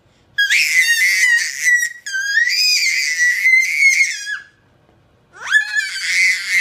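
Baby girl squealing at high pitch: two long, loud squeals, then a third starting near the end. This is a baby's vocal play as she discovers her voice.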